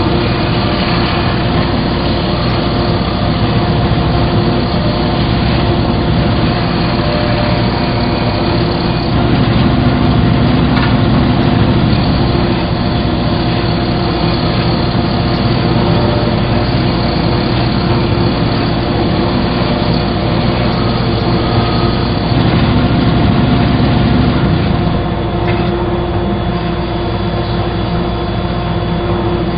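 A woodworking power tool running steadily, with steady whining tones over a dense machine noise; the sound eases slightly near the end.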